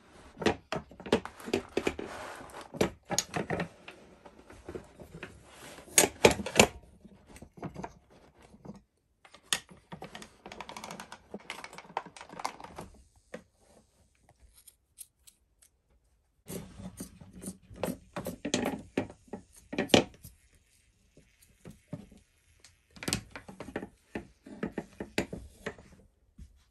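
Wooden rigid heddle loom, a Schacht Cricket, being worked by hand: irregular runs of wooden clacks and knocks as the heddle and beam are handled, with yarn rubbing against the reed. It comes in three stretches with short silent breaks between them.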